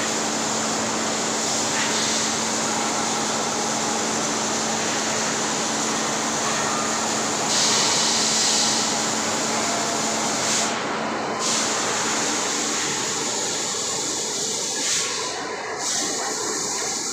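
Steady industrial din of steel rolling mill machinery around the cooling bed, a dense even noise with a low steady hum under it that fades out about two-thirds of the way through. A sharper hiss rises over it for about a second around eight seconds in.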